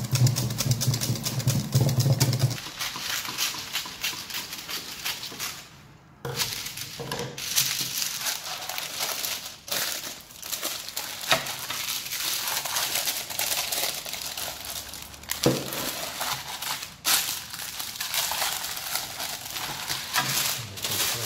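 A wire whisk beating batter in a stainless steel bowl with rapid scraping strokes. After a short break this gives way to baking parchment paper rustling and crinkling as it is handled and pressed over a cake tin base, with a few sharp knocks.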